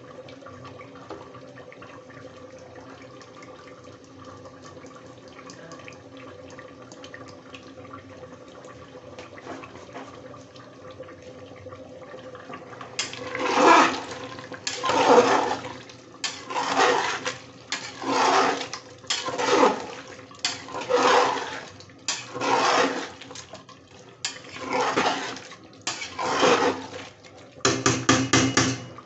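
A metal ladle stirring watery mutton curry in an aluminium pressure cooker. The liquid swishes and sloshes in about ten strokes, roughly one every second and a half, then a quick run of short scraping strokes near the end. For the first half only a faint steady hum is heard, before the stirring starts.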